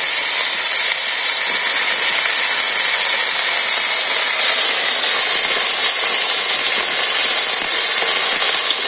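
Chopped drumstick (moringa) pieces sizzling in hot oil in a pan: a loud, steady hiss.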